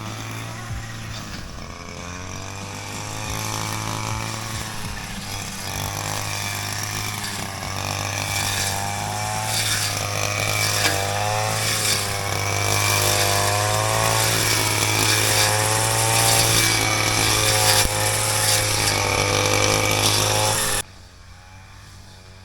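Petrol strimmer (brush cutter) running while cutting overgrown brush, its engine speed rising and falling as it takes and sheds load. It cuts off abruptly near the end.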